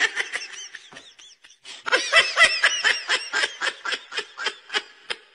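High-pitched giggling laughter: a short burst at the start, then after a pause a quick run of 'hee-hee' pulses, about four a second, fading toward the end.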